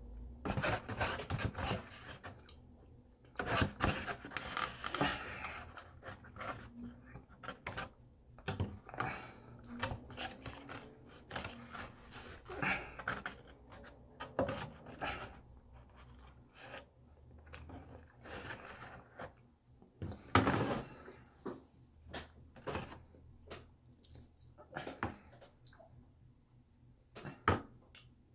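Close-up eating sounds: chewing and wet mouth noises from loco moco in gravy, mixed with irregular clicks and scrapes of a fork and knife against a foam takeout box. One louder burst comes about twenty seconds in.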